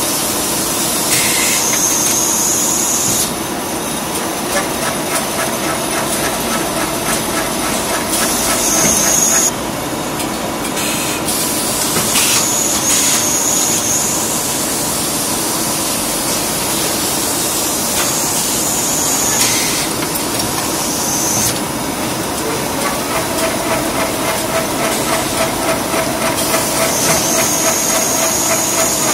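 Automatic cable coiling and wrapping machine running, a steady mechanical drone with a fast light ticking. Over it, a high air hiss from the pneumatic actuators starts and stops several times, and a steady hum sets in near the end.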